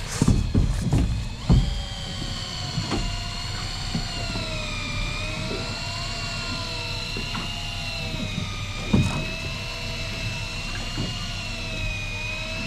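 A motor whining steadily, its pitch wandering slowly up and down and stepping up about a second and a half in. There are a few knocks near the start and one about nine seconds in.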